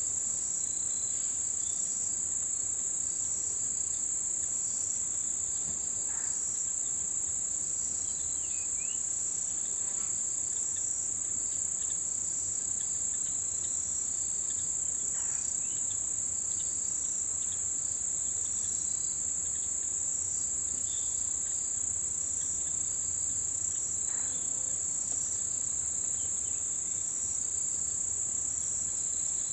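Dense chorus of autumn insects in the mountains: a steady, unbroken high-pitched trill with no pauses. A few faint short calls sound now and then above it.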